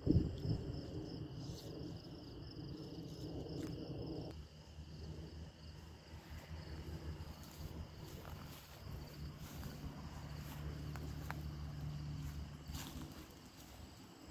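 Crickets and other insects chirring steadily, over a low rumble. A steady low hum runs underneath from about four seconds in until shortly before the end.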